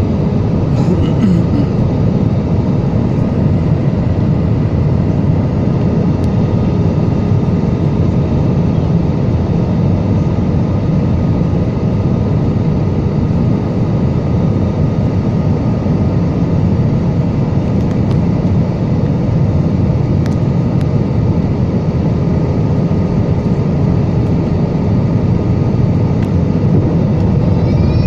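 Airliner cabin noise heard from a window seat over the wing: a steady rumble and rush of jet engines and airflow, with a few faint steady hums.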